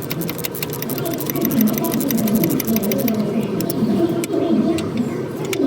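Ratchet wrench clicking in quick, uneven strokes as a bolt is turned out.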